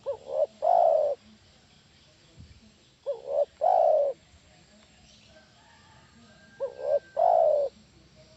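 Spotted dove cooing: three calls about three and a half seconds apart, each two short notes followed by one longer coo.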